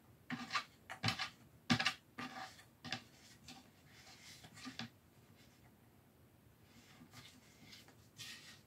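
Plastic threaded parts of a flat-pack corner shelf being screwed together by hand: a run of short clicking and scraping rubs, plastic on plastic and wood, soft and busiest in the first half, with one more scrape near the end.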